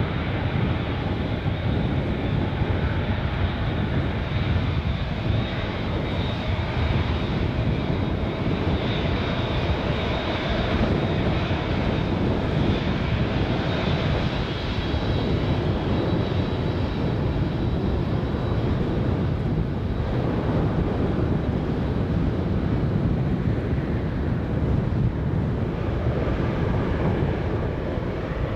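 Airbus A380's four turbofan engines running at low thrust as the jet taxis: a steady, unchanging jet rumble with a thin high whine riding on top.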